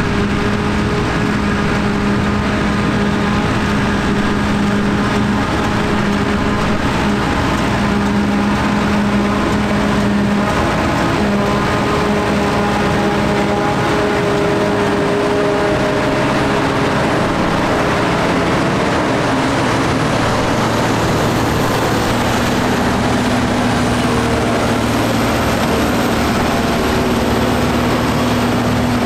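Claas Jaguar and John Deere 5830 self-propelled forage harvesters picking up and chopping grass for silage, heavy diesel engines running under load with tractors working alongside. It is a loud, steady drone with a held hum, and the hum changes pitch a little past halfway.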